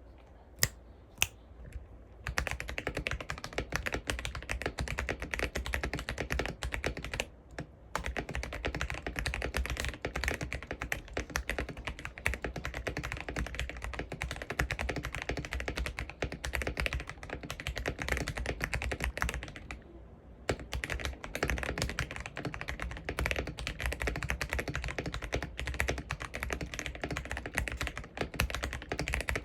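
Fast, continuous typing on a Keychron V1 mechanical keyboard with lubed Akko V3 Jelly Blue switches, SA profile keycaps and foam and tape mods, giving a deep "thocc". Two single sharp keystrokes come first, then steady rapid typing that breaks off briefly twice.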